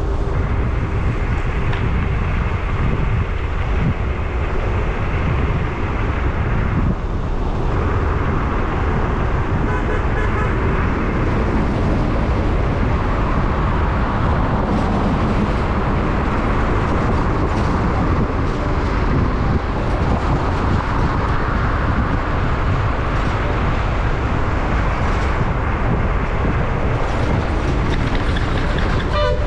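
Steady low rumble of a vehicle travelling on a highway, with road and wind noise. A horn sounds briefly right at the end.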